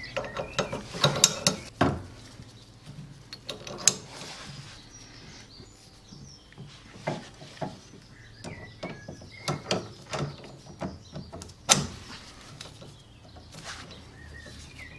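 Irregular metal clinks and knocks of a socket wrench, nut and steering arm as the arm is fitted back onto a lawn tractor's stub axle, with one sharper knock a little before the end. Birds chirp faintly in the background.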